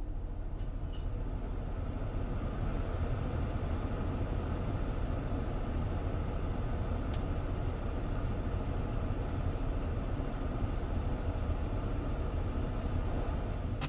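Steady low rumble of a car heard from inside its cabin, with one faint click about seven seconds in.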